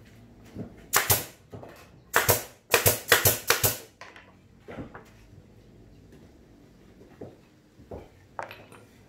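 Pneumatic brad nailer firing nails into a plywood speaker cabinet: one shot about a second in, then a quick run of about seven shots between two and four seconds. After the shots come a few lighter knocks of the plywood panels being handled.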